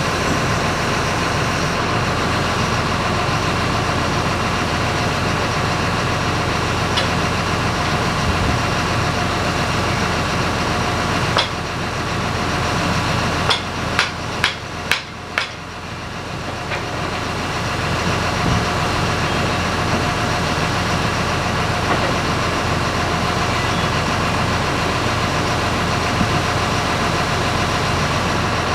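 An engine running steadily, with a single sharp knock about a third of the way in. Then five quick hammer blows come at about two a second. The engine sound dips during the blows and rises back afterwards.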